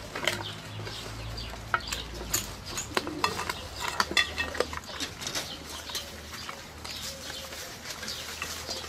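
A German Shepherd dog eating raw meat from a bowl: irregular wet chewing, smacking and clicking, busiest in the first half.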